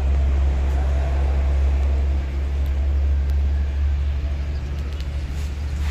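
Wind buffeting the microphone: a steady low rumble, a little louder in the first two seconds.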